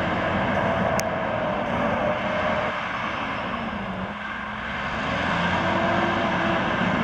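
Western Star 6900XD heavy truck's CAT C15 diesel engine pulling away and driving. Its pitch sinks near the middle and climbs again as it accelerates.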